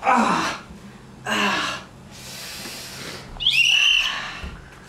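A young man's mock cries of pain: a short yell that falls in pitch, a second cry, a breathy hiss, then a high-pitched wail lasting about a second, near the end.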